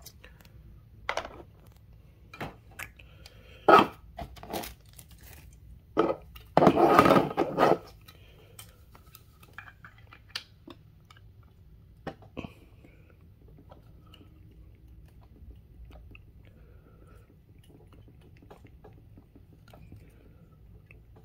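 Plastic clicks, knocks and rustling as a 1:200 Skymarks Airbus A380 model and its white plastic display stand are handled and fitted together. The sharp knocks fall in the first half, with a longer, louder rustle about seven seconds in, then only faint handling noises.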